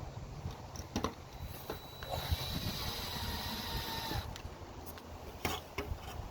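Cordless drill driving a screw: the motor whines up and runs steadily for about two seconds, with scattered clicks and knocks of handling before and after.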